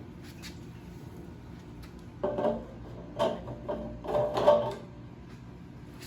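Several short knocks and clatters of parts or tools being handled, in three bunches about two, three and four seconds in.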